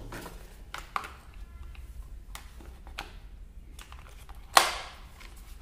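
Knocks and clicks of plastic and metal parts being handled as the motor and pump unit of a Kärcher K2 Basic pressure washer is set into its plastic housing, with one sharp knock about four and a half seconds in.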